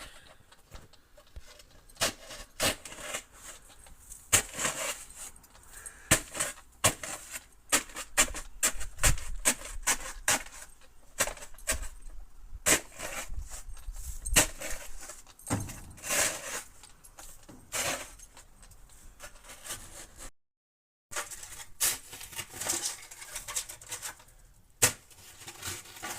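Snow crunching and scraping, in irregular sharp crunches a few times a second. It stops dead for under a second about twenty seconds in.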